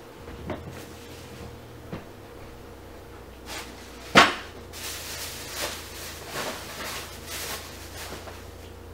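Knocks and rustling close to the microphone: one sharp knock about four seconds in is the loudest, with fainter clicks before it and a run of soft rustles after, over a faint steady hum.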